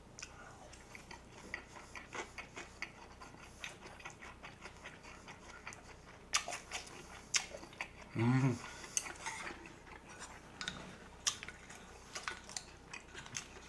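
Close-miked chewing of a gimbap roll: a run of soft wet mouth clicks, with a few sharper taps of chopsticks on the dishes. A short hummed "mm" comes about eight seconds in.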